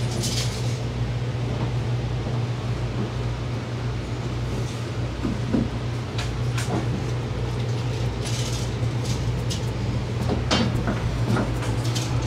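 A steady low mechanical hum from a running machine, with two short hisses and a few light knocks.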